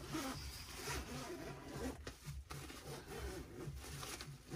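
Long zip on a soft camo fabric bait-boat carry bag being drawn open in a continuous rasp, with the bag's fabric rustling.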